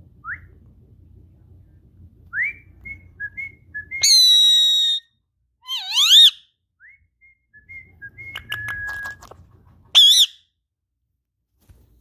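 Indian ringneck parakeet making a string of short chirps and whistles, with a loud, shrill call held for about a second about four seconds in, a wavering call around six seconds, and another brief shrill call near the end.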